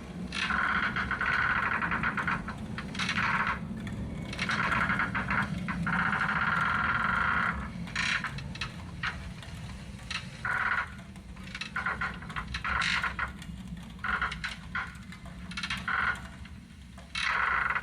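Frogs croaking in rapidly pulsing bursts of one to three seconds, one after another, over a low steady hum.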